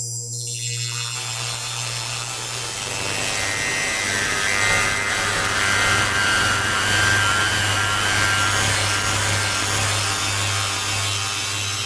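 Modular synthesizer drone from a 4ms Ensemble Oscillator run through a Doepfer ring modulator, breaking up into a dense, rasping noise over a steady low drone. The noise spreads down from the high end in the first second or so, and clear pitched tones return near the end.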